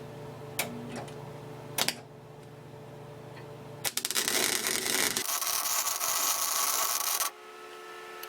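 Electric welding arc crackling and hissing for about three and a half seconds, starting about four seconds in and cutting off abruptly, as a nut is tack-welded onto steel to make a chuck key. Before it, a low steady hum and a few sharp clicks.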